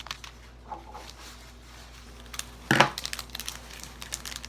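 Foil wrapper of a Pokémon card booster pack being handled and crinkled, with light clicks and rustles and one louder, short noise a little past the middle.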